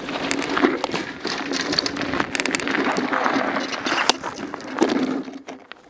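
Mountain bike rolling over rough trail: a steady hum of tyres and wind with dense rattling and knocking from the bike, fading briefly near the end.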